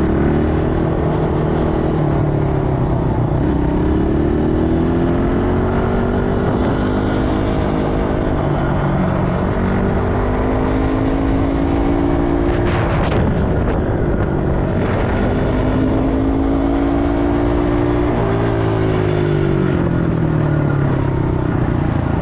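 ATV engine running while riding, its pitch slowly rising and falling as the throttle and speed change, over a constant low rumble. A brief sharp knock comes about halfway through.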